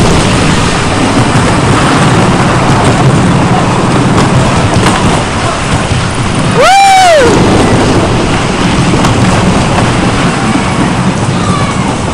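Wooden kiddie roller coaster train running along its track, a steady loud rumble mixed with wind noise on the microphone. About seven seconds in, a rider lets out one short high yell that rises and falls in pitch.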